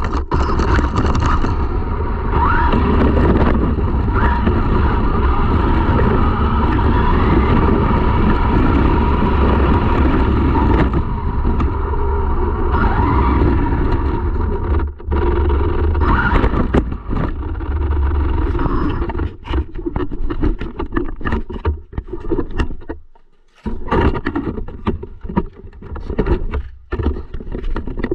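Radio-controlled car running, its motor note rising and falling in pitch over a steady low rumble. In the last third the sound turns choppy and stop-start.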